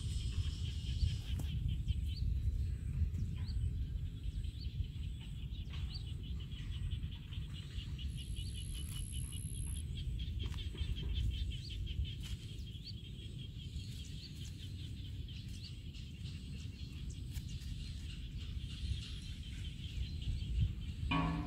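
Outdoor field ambience: a low wind rumble on the microphone under a fast, steady train of high-pitched chirps, with a short pitched call right at the end.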